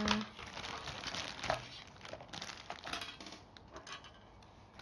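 Plastic toy packaging crinkling and rustling in irregular bursts as it is handled and opened.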